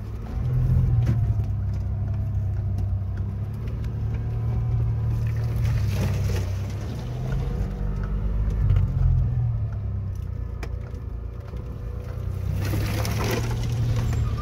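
Off-road 4x4 pickup's engine running at low, steady revs, heard from inside the cab as it crawls over a rough dirt track, with small knocks from the body and suspension. A louder rush of noise comes near the end as mud is thrown against the windows.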